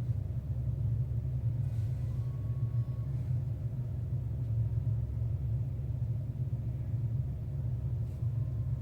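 Steady low-pitched rumble of background noise with no distinct events.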